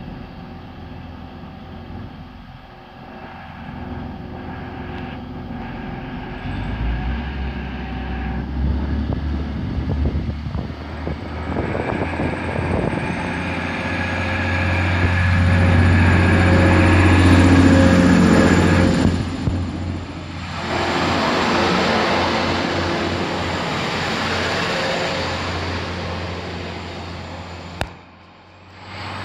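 Class 185 diesel multiple unit pulling away from the platform, its diesel engines droning and building as it accelerates past, loudest about halfway through, then easing off as it draws away.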